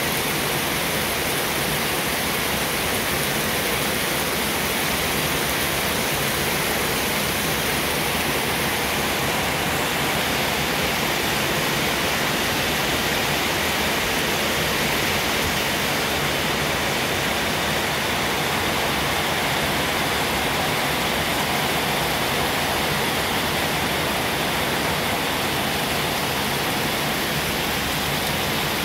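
A steady, even rushing hiss that does not change, with no distinct crunches, clicks or other events.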